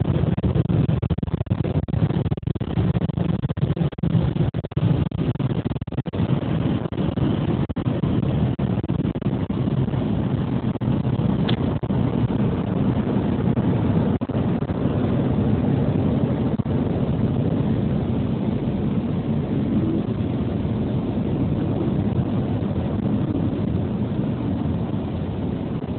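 Automatic car wash running: a steady rushing noise of water spray and machinery, with scattered knocks in the first several seconds.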